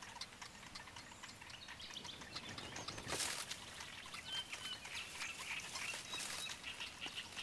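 Faint reed-bed sounds: scattered small clicks and a brief rustle about three seconds in, with short high bird chirps in the second half.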